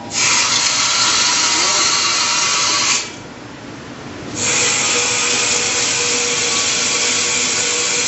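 Water running into a pan in two steady spells, the first about three seconds long and the second about four, each starting and stopping sharply.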